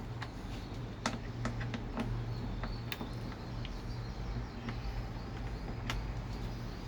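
Scattered light clicks and taps of handling and small tools, a few seconds apart, over a steady low hum.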